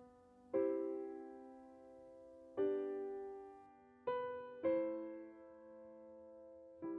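Soft, slow piano music: four sustained chords, each struck and left to ring and fade.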